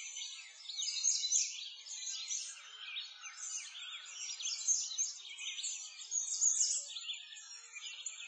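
A dense chorus of many songbirds chirping and singing over one another, with rapid short chirps and quick trills going on without a break.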